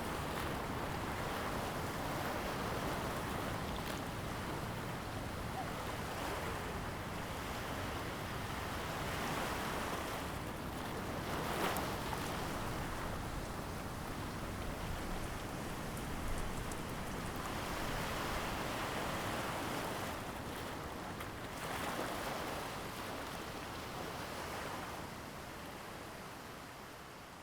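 Sea surf: waves washing onto a beach, an even hiss that swells every few seconds, fading out near the end.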